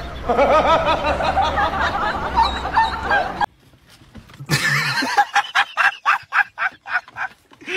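A dog yelping and whimpering in wavering cries over a low rumble, cut off suddenly. A second or so later a person laughs hard in quick rhythmic bursts.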